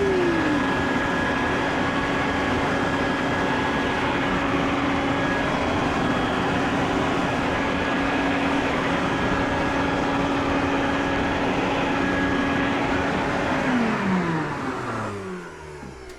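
An electric motor running steadily with a constant whine, then switched off near the end and winding down with falling pitch.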